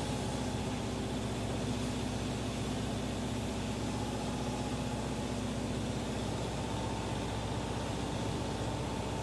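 Steady machine hum with an even hiss, unchanging in level.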